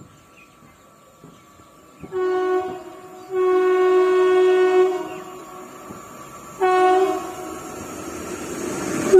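Approaching train's air horn sounding three times: a short blast about two seconds in, a long blast, then another short one, with the rumble of the oncoming train growing near the end.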